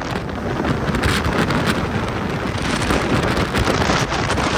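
Strong storm wind blowing across the microphone: a loud, steady rush of noise.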